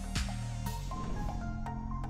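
Electronic outro music: a steady kick-drum beat about twice a second that drops out under a brief hiss less than a second in, leaving held bass and synth notes.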